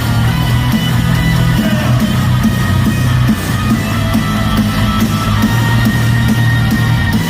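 Loud live rock music without vocals: distorted electric guitars over a steady low bass line, with drums keeping a regular beat.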